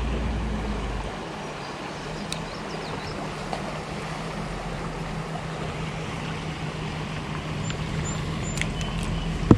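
A truck's engine running steadily, a low hum with a deeper rumble in the first second. It is most likely the trout-stocking truck arriving at the creek.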